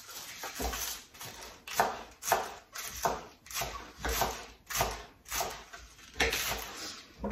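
Kitchen knife slicing through a head of cabbage and knocking on the cutting board: a string of irregular cuts, roughly two a second, some sharper than others.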